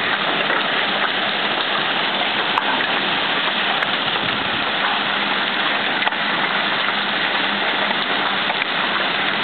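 Hail and heavy rain pouring down onto a street and parked cars: a dense, steady hiss.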